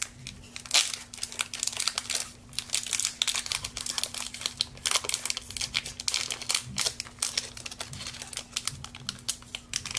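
Crinkly booster-pack wrapper being handled and torn open, a dense, irregular run of sharp crackles that goes on throughout.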